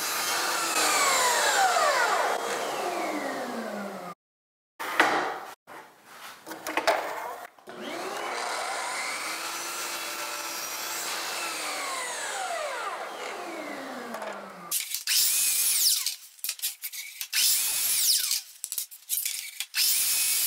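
DeWalt FLEXVOLT 120V brushless miter saw cutting trim boards. Twice the blade runs at speed and then winds down in a falling whine. Near the end comes a quick string of short, sharp cutting and knocking sounds.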